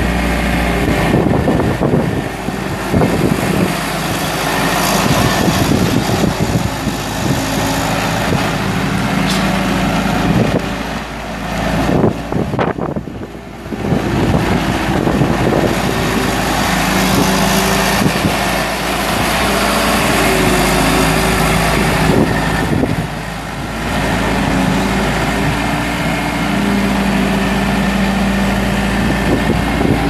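2005 New Holland LT190B compact track loader's four-cylinder turbo diesel running as the machine drives on its tracks and raises its loader arms. The engine note rises and falls, dropping briefly about halfway through.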